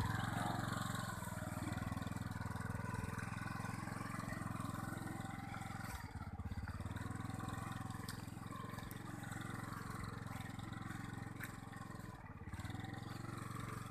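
A motor engine running steadily: a low rumble that eases briefly about six seconds in and again near the end.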